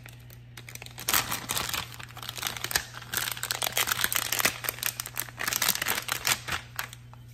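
Plastic wrapping crinkling and crackling as a block of cheese is unwrapped by hand. The crackling starts about a second in and dies away near the end.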